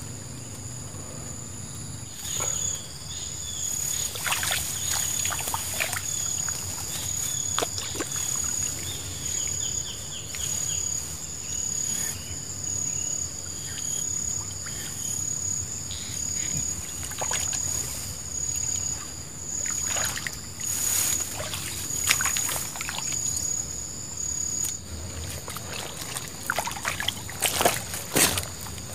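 An insect keeps up a steady, high-pitched drone, which stops a few seconds before the end. Over it come rustling and scuffing from someone moving through riverside grass and along a muddy bank, with scattered clicks that bunch up near the end.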